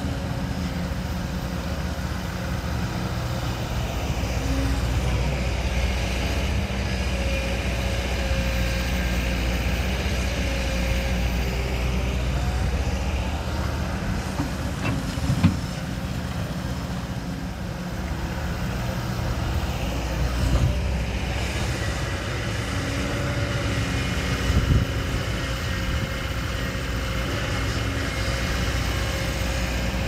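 Heavy diesel construction machine engine running steadily under load, its pitch rising and falling a little. A sharp knock comes about halfway through, and two lighter knocks follow later.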